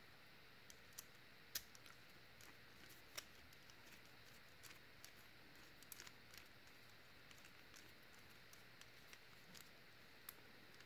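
Faint, irregular small clicks and ticks of a screwdriver turning a screw into the metal frame of a Hubley Texan Junior toy cap gun. A few sharper clicks stand out over an otherwise near-silent background.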